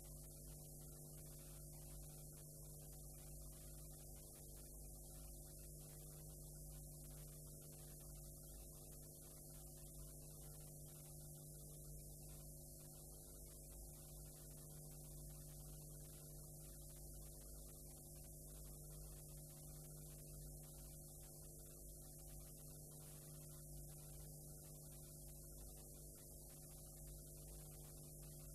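Near silence: a faint, steady electrical hum with hiss, the noise floor of a blank stretch of videotape.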